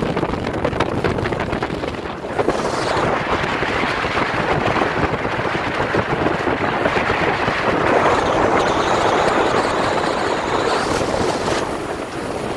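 Wind buffeting the microphone of a bass boat running at speed over choppy water, over the rush of water and the drone of the boat underway. The noise grows louder and brighter about two seconds in.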